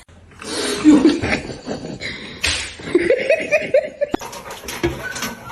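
A person laughing in a run of short bursts, with a sharp click about four seconds in.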